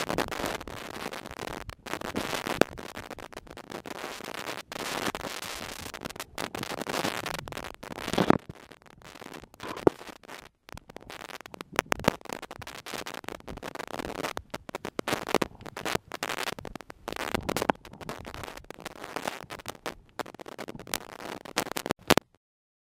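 Water noise picked up by a submerged camera in its waterproof housing: an irregular crackle and swish with many sharp clicks and knocks against the housing. It cuts off suddenly just before the end.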